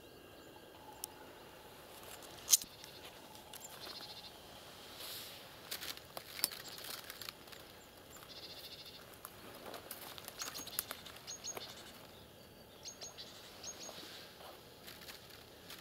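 Footsteps of a person in rubber boots, brushing through dry reeds and grass and stepping into shallow water, with scattered soft clicks and rustles and one sharper snap about two and a half seconds in. A few short high bird chirps come in the second half.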